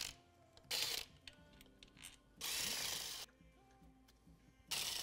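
Three short runs of a power tool, the middle one nearly a second long, backing out the clutch-cover mounting bolts on a Yamaha Blaster 200's engine. Faint background music plays underneath.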